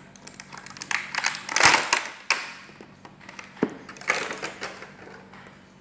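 Plastic Play-Doh toy tools and packaging being handled: crinkling rustles and small clicks, loudest about one and a half to two seconds in and again around four seconds.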